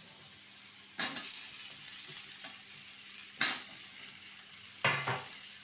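Cut pointed gourd (parwal) pieces dropped into hot mustard oil in a kadhai, the oil sizzling up sharply three times, about a second in, past the middle and near the end, over a steady frying hiss.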